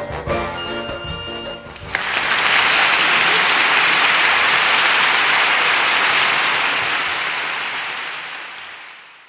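Background music stops about two seconds in and gives way to loud crowd applause, which holds steady and then fades out near the end.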